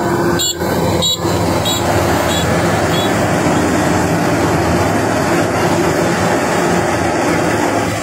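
Kubota DC-93 combine harvester running steadily while cutting and threshing rice: a continuous dense mechanical drone of engine and threshing machinery. A run of short high beeps, about one every 0.6 s, fades out by about three seconds in.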